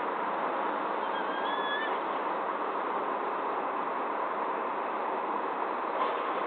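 Steady rushing outdoor background noise, with a short whistled bird call that glides slightly upward about a second in.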